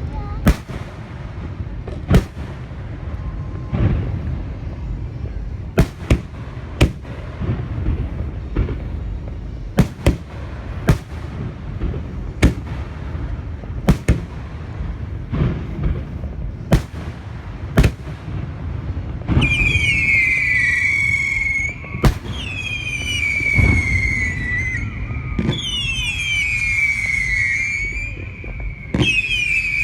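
Aerial fireworks display: shells bursting with sharp bangs at irregular intervals, about fifteen in the first eighteen seconds, over a steady low rumble. In the last ten seconds a high whistling tone sounds four times, each starting higher, falling, and then holding its pitch for a couple of seconds.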